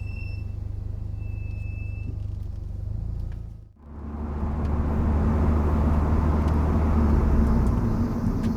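Brembo brakes with Endless MX72 pads fitted without anti-noise shims squealing under light braking: a steady high-pitched squeal that stops about half a second in and returns for about a second shortly after. Under it the car's engine and road noise run steadily, cutting out briefly about four seconds in and then coming back louder.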